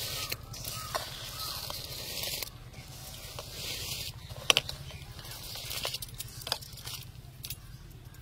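Raw biryani rice being scraped by hand out of a metal bowl into a pot of hot water: grains rattling and sliding in, with a steady hiss and scattered clicks, one sharp click about four and a half seconds in.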